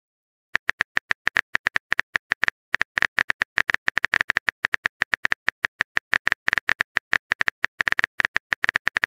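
Phone keyboard typing sound effect: rapid, irregular key-tap clicks as a message is typed, starting about half a second in with a brief pause near the middle.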